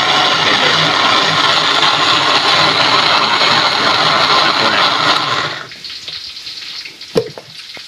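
Cosmos electric countertop blender running, grinding fried peanuts and water into a paste with a steady motor hum. It stops about five and a half seconds in, followed by a sharp click.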